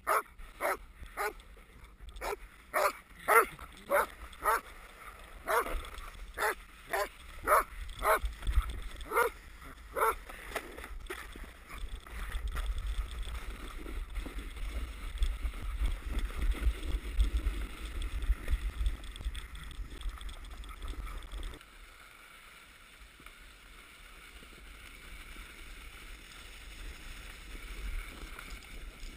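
A dog barking over and over, about two barks a second, for the first ten seconds or so. After that comes a rough low rumble and hiss of a sled sliding over snow, which drops to a quieter hiss a little after twenty seconds.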